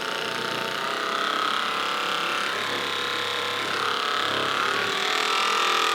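Theragun Mini percussive massage gun running, a steady mechanical buzz.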